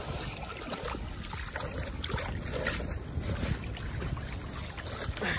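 Wind buffeting the microphone, with water splashing and dripping as a cast net is hauled in by its rope through shallow water.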